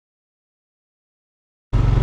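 Dead silence, then near the end a motor scooter's engine cuts in abruptly, running steadily.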